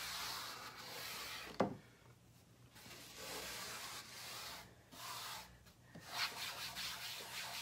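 Wet wipe rubbing across a chalkboard surface in uneven strokes, wiping up dried chalk paste crumbs and powder. A single sharp tap about one and a half seconds in; the rubbing pauses briefly twice.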